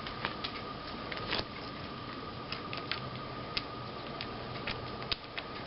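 Small irregular ticks and clicks of a tiny screwdriver turning a small screw into a laptop screen's mounting, about a dozen in all, over a steady faint hum.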